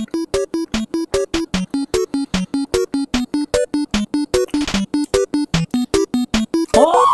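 Background music: a fast, bouncy run of short staccato electronic keyboard notes, about five a second, with a lower note every few beats. Swooping, gliding tones join in near the end.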